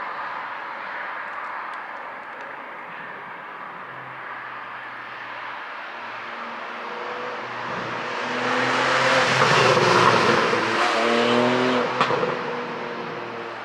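Porsche 718 Boxster GTS 4.0 flat-six engine running, growing louder to a peak about ten seconds in as the revs rise, then fading. One sharp exhaust crack comes near the end, the pop that the ECU tune is meant to give.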